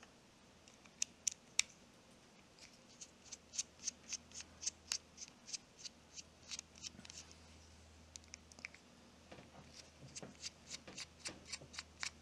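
Irregular run of small, sharp metal clicks and ticks as a number zero Phillips precision screwdriver works the frame screws out of a Shimano Curado BFS XG baitcasting reel, the tool tapping and turning against the small screws and the reel frame.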